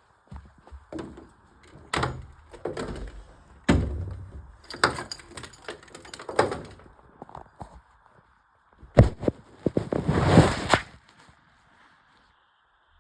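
A series of irregular knocks and bangs, with the loudest, densest cluster of impacts near the end.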